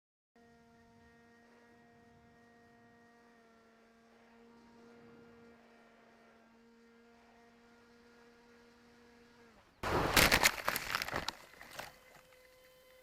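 Faint steady whine of a small RC plane's electric motor, picked up by the onboard keychain camera. About ten seconds in, it gives way to a loud rough burst of impact and scraping noise lasting about a second and a half, typical of the foam plane hitting the ground on a crash or landing. A fainter steady tone follows.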